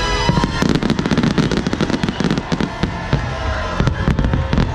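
Fireworks display going off: aerial shells and rockets bursting in a rapid, dense string of bangs, thickening about half a second in.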